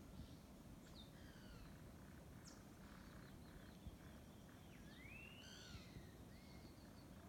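Faint birdsong from several birds: short sweeping chirps and whistles, with a longer rising glide about five seconds in, over a low steady rumble.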